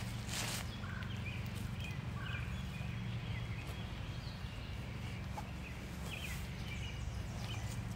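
Woodland birds chirping in short calls over a steady low rumble, with a few footsteps on the dirt road near the start.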